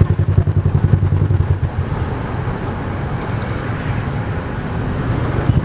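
Motorcycle engines running at low speed: a low pulsing rumble that eases off and evens out for a few seconds in the middle.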